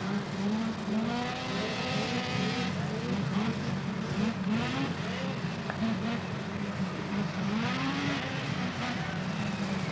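Several two-stroke snowmobile engines running at once, their pitch climbing as sleds accelerate, once about a second in and again near the end.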